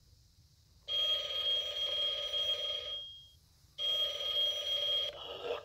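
Battery-powered Victorian-style Halloween novelty telephone playing a recorded telephone ring through its built-in speaker: two ring bursts of about two seconds each, with a pause between them, the second cut off near the end.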